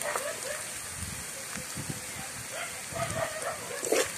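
Sliced onions sizzling in hot oil in an aluminium pan as green chillies are added and stirred in with a steel ladle, with small clicks of the ladle and a sharp clatter near the end.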